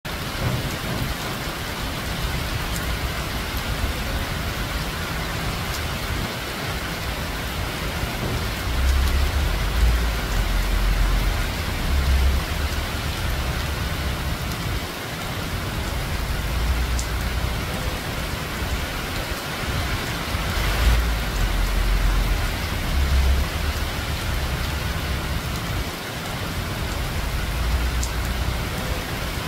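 Steady rain falling on dense foliage, a constant hiss, with a few low rumbles swelling now and then.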